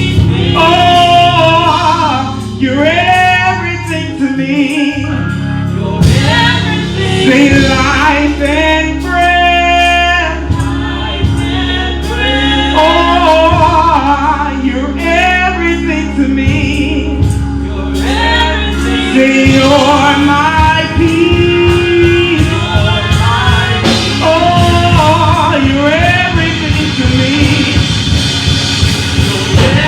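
Gospel song with female and male voices singing over a band, with bass and held keyboard chords underneath.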